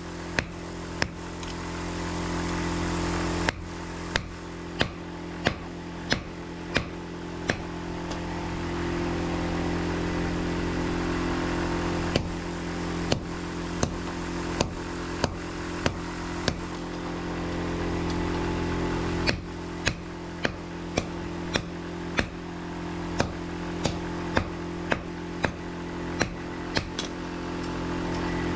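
Hammer blows striking steel, one to two a second, in runs broken by pauses of a few seconds. Under them runs the steady drone of a motor.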